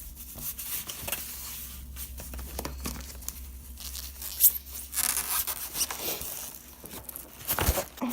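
Bubble wrap and plastic packaging rustling and crinkling as it is handled and pulled away, with sharp crackles and clicks, getting busier and louder about halfway through.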